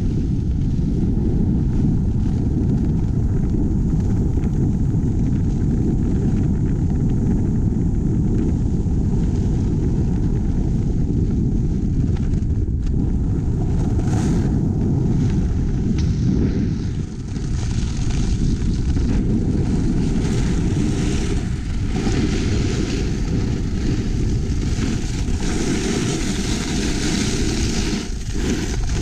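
Wind buffeting a GoPro's microphone as a snowboarder rides downhill at speed: a steady, loud low rumble. The hiss of the snowboard sliding and scraping over the snow grows brighter in the second half.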